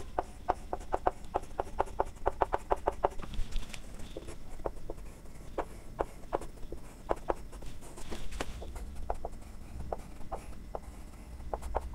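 Chalk striking and scraping on a blackboard. For about three seconds it makes a quick run of short, even strokes, about five a second, as section hatching is drawn. After that come slower, scattered taps and scrapes as lines and letters are chalked.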